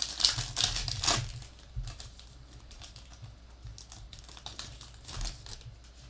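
Foil trading-card pack wrapper crinkling and crackling as it is handled and opened by hand. The crinkling is densest in the first second, with scattered crackles afterwards and another brief cluster about five seconds in.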